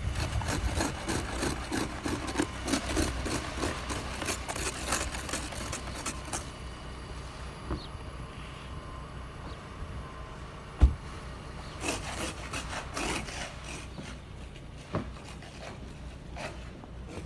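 Snow being brushed and scraped off a car: runs of quick, repeated scraping strokes, with a single thump about eleven seconds in.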